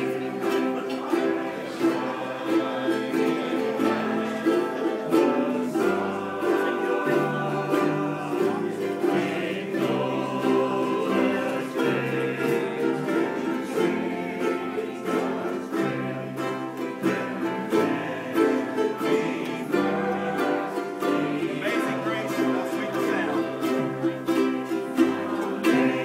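A group of ukuleles strumming chords together in a steady rhythm, playing a song as an ensemble.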